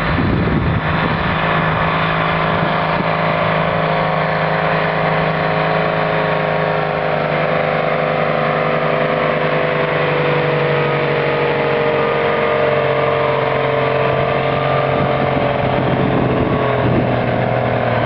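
Vintage tractor's diesel engine running hard as it drags a weight-transfer pulling sledge. Its pitch holds at first, then sags gradually over the second half as the sledge's load builds and the engine bogs down.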